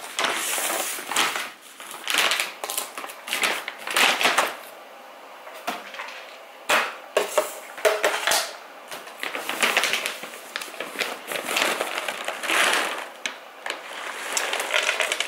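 Large bag of dry dog food rustling as it is handled, and dry kibble pouring and rattling into a plastic canister, on and off with many small clicks.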